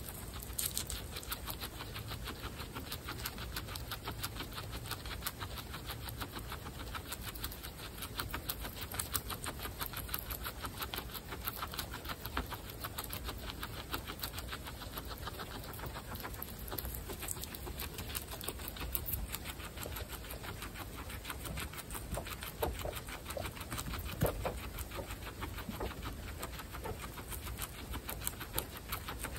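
Several guinea pigs munching fresh grass: rapid, continuous crisp chewing clicks, a little stronger near the end.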